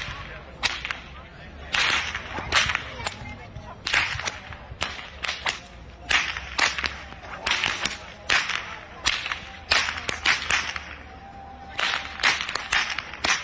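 Long-lashed herdsman's whips (karikás ostor) cracked over and over, sharp loud cracks coming in quick runs of two to five, with short pauses between the runs.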